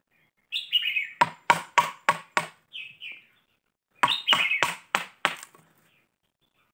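A metal bar jabbed again and again into the soft, fibrous pith of a hollow fishtail palm trunk, splitting and tearing the fibres loose. It comes in two quick runs of strokes, about four a second. Short, falling bird chirps sound among them.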